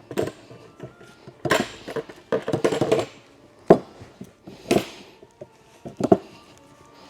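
Parts of an axe-throw target frame being handled and fitted together: a run of irregular knocks, clanks and rattles, with the sharpest knock about three and a half seconds in.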